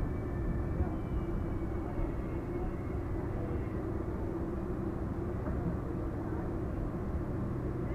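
Passenger express train pulling slowly into a station platform, heard from an open coach door: a steady rumble of the coach running on the track, with a steady low hum under it.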